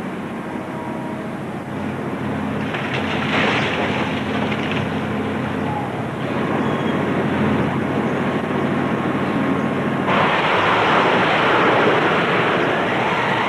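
Heavy diesel earth-moving machinery, a dump truck and a bulldozer, running steadily with a low hum under a rushing noise of wind and surf. The rushing grows louder and brighter about ten seconds in.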